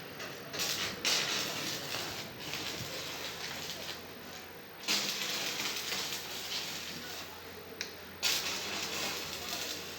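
Electric arc welding on a steel grill, a crackling hiss that runs in three welds of a few seconds each, with short breaks about four and eight seconds in.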